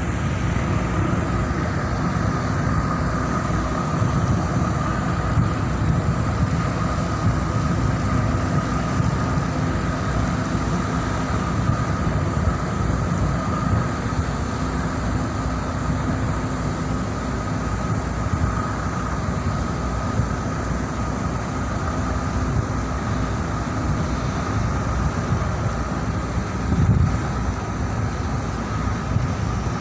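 A ship's diesel engine running steadily during a berthing manoeuvre: a low drone with a steady whine above it, and a brief louder surge near the end.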